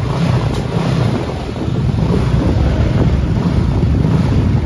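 Motorcycle engine running through a freshly modified and repacked aftermarket muffler, a steady low exhaust rumble buffeting the microphone like wind.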